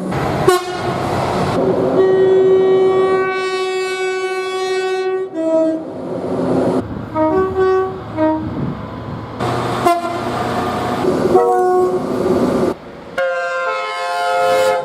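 Train horns sounding in a string of cut-together clips: a long blast of several notes at once, then a run of short toots, then more blasts, each clip starting abruptly. The rumble of a passing train runs underneath.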